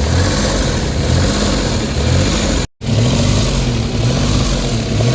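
Suzuki DA17's K6A three-cylinder engine running, the rough, hunting idle in which its rpm goes high and low with no fault code stored. The sound breaks off for a moment near the middle, then carries on.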